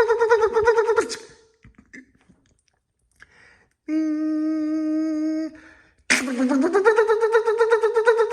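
A voice imitating a car's starter cranking, with a fast, even chugging that stops about a second in. After a short pause there is a steady hummed tone for about a second and a half. The chugging cranking starts again near the end, rising in pitch as it gets going, like an engine that turns over but won't catch.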